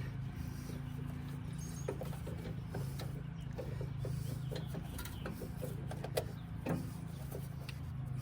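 Scattered plastic clicks, scrapes and light knocks of an H11 headlight bulb being twisted and worked into its headlight housing, over a steady low hum.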